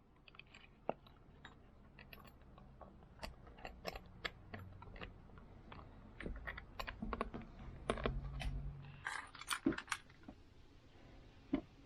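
Metal key blanks clinking and clicking irregularly as they are handled and put into a tumbler barrel with sand, with a faint low rumble partway through.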